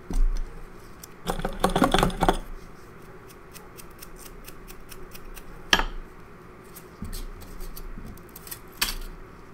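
Small clicks, taps and a short rattle of hand tools being handled at a microsoldering bench: a thump at the start, a quick run of clicks about a second in, and two sharp single clicks later on.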